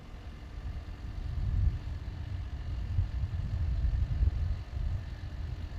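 John Deere 310L backhoe loader's diesel engine running, a low rumble that swells and eases a couple of times.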